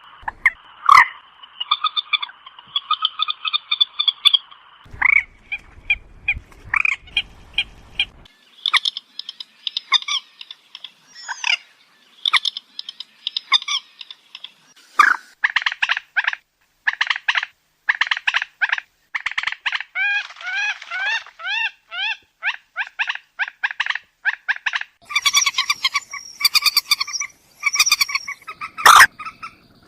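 Common moorhen calling: runs of short, sharp clucking notes repeated rapidly, with a stretch of quicker, chattering notes about two-thirds of the way through.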